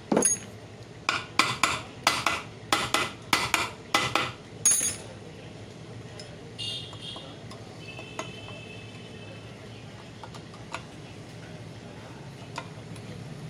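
Metal hand tools clinking against steel: about ten sharp metallic clinks in quick, fairly even succession during the first five seconds, followed by a faint brief ringing and light handling noise.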